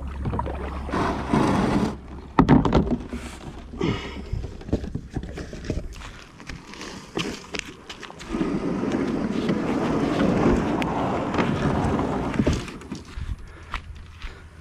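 A sit-on-top fishing kayak being landed on a dirt bank. A paddle stroke in the water is followed by knocks and scrapes of the plastic hull and gear a couple of seconds in. Footsteps on dirt and grass follow, then a few seconds of steady scraping rustle before it settles to faint clicks.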